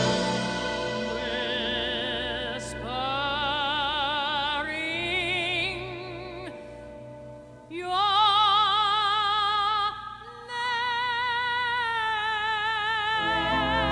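A woman's contralto voice singing in a full, operatic style with a wide vibrato, holding long notes. There is a short lull about halfway through before the next phrases.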